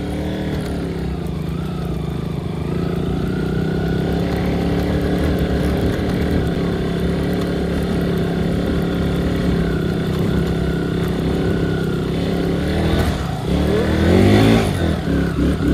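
Motorcycle engine pulling at a steady speed while riding a dirt trail. About thirteen seconds in, the engine note drops, then revs up and down quickly and loudest.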